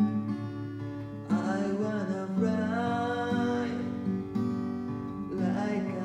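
Music: an acoustic guitar plays the chords of an original song, with a wavering melody line over it from about a second in.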